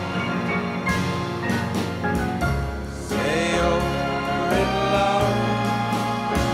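Background music: a song with sung vocals over instrumental accompaniment.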